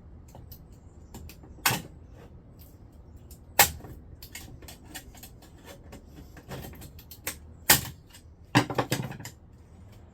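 Scrap microwave parts being taken apart by hand with a screwdriver: scattered metal clicks and small ticks, with three sharp knocks and a quick rattle of knocks near the end.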